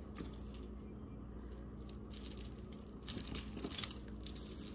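Costume jewelry being handled: small metal pieces lightly clinking and rustling, busier about three seconds in, with one sharp click shortly before the end, over a faint steady hum.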